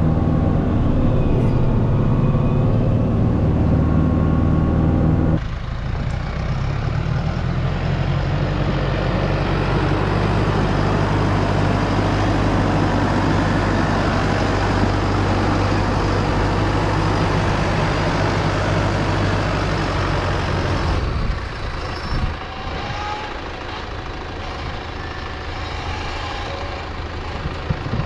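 Diesel farm tractor engines running under load in deep snow. First the tractor driving an eight-foot Farm King snowblower runs steadily. About five seconds in, the sound changes abruptly to a New Holland loader tractor pushing snow, its engine under a broad rushing noise, and it turns quieter for the last several seconds.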